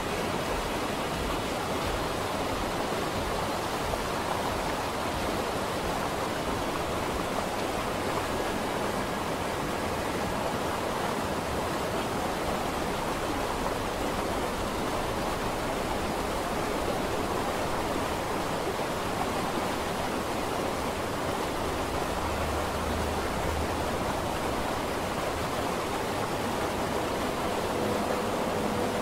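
Steady, even hiss of an ambience noise bed, with no distinct events; a faint held tone comes in near the end.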